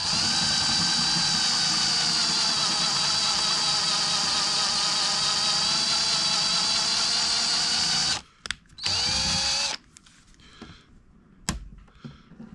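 Cordless drill drilling out a pop rivet that holds a car's number plate. It runs steadily for about eight seconds, stops, then gives a brief second burst. After that come a few light knocks as the plate is handled.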